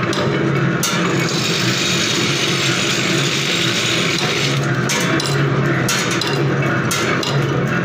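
Automatic thread rolling machine running with its vibratory bowl feeder: a steady mechanical hum under a metallic rattle of small steel parts, with a few sharp clicks in the second half.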